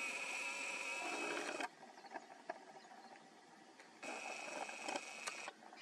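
A steady, high-pitched buzzing drone that cuts off abruptly about a second and a half in and returns for about a second and a half near the end, with faint clicks in between.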